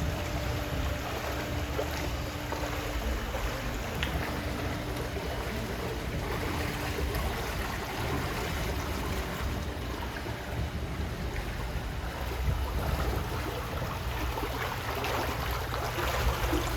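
Steady wash of water and a low rumble as a ride boat moves along its water channel, with a faint steady hum in the first several seconds.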